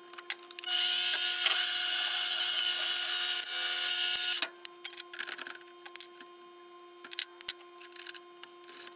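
Mini metal lathe running with a steady whirring hiss from its motor and spinning chuck, starting about a second in and cutting off after about three and a half seconds. Light clicks and knocks of hands working the chuck and tool post come before and after it.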